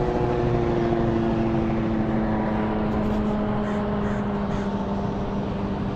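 Engine drone of a passing propeller airplane, a steady hum whose pitch falls slowly throughout, over a constant hiss.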